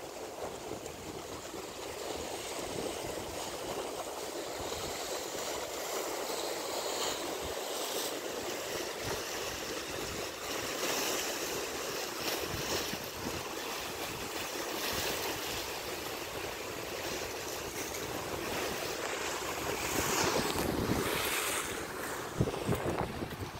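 Sea waves washing and breaking against a rocky shoreline, a steady rushing wash that swells louder now and then, most of all near the end. Wind buffets the microphone.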